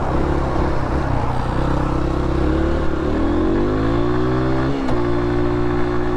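Honda CRF150F's single-cylinder four-stroke engine under load, heard from on the bike: a few seconds in it climbs steadily in pitch, dips sharply just before the five-second mark at a gear change, then holds steady at a higher pitch.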